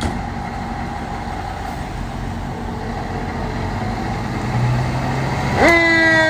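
Fire engine approaching, its engine noise slowly growing louder. Near the end its siren starts, jumping sharply up in pitch and then slowly falling.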